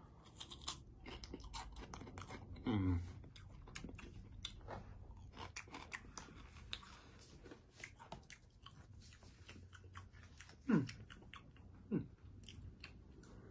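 Small crunchy chip snack being bitten and chewed close to the microphone, with many quick crunches throughout. There are three short falling hums, about three seconds in and twice near the end.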